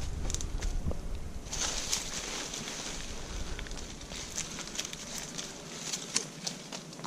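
Leafy branches rustling and crackling up close as they are gathered and bundled by hand, with many short sharp ticks. A steady high hiss sets in about a second and a half in.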